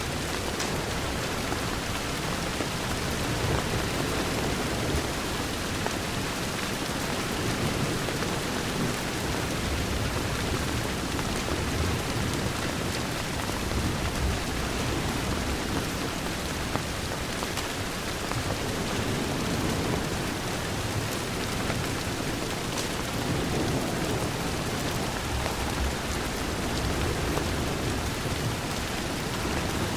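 Steady rain pattering against a window, with a low, uneven rumble underneath.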